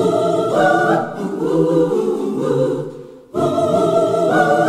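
A choir singing a gospel-style song in several voices; about three seconds in, one phrase dies away and the same phrase starts over.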